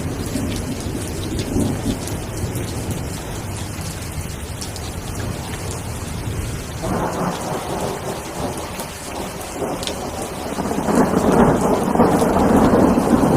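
Steady rain falling through a thunderstorm, with low rumbling thunder. The rumble swells about seven seconds in and grows louder again near the end.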